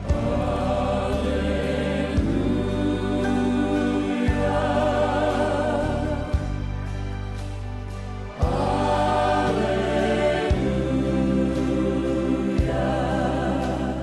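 Slow gospel worship music: voices holding long wavering notes over an instrumental accompaniment whose bass chords change about every two seconds.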